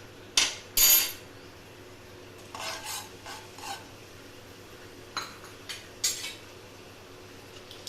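A metal spoon clinking and scraping against a pressure cooker while stirring seeds into oil. There are two sharp clinks in the first second, then lighter taps and scrapes a couple of times later.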